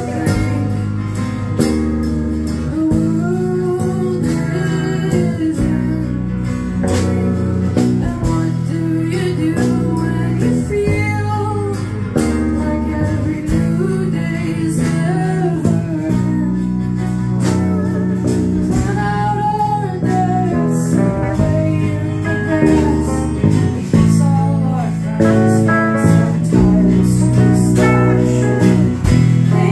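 A live band playing a song: a voice singing over a strummed acoustic guitar, with electric bass and electric guitar.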